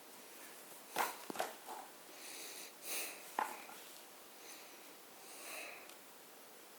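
Faint handling of a paper picture book as a page is turned: a few soft clicks about one second and three and a half seconds in, with short breathy rustles in between.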